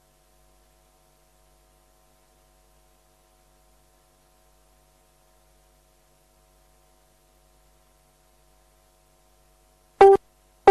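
Near silence with a faint steady hum for most of the stretch. About ten seconds in, music cuts in with two short stabs.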